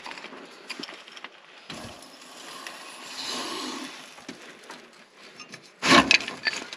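Steel hand tools clinking and scraping against a truck's steering parts while a pitman arm puller works, then a loud metallic clank about six seconds in as the puller and the cut, rust-seized pitman arm come down off the steering box shaft.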